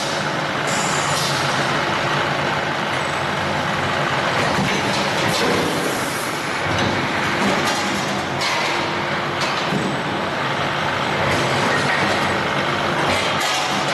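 Steady running noise of a rotor aluminium die-casting machine, a low hum under a hiss of air that cuts in and out several times.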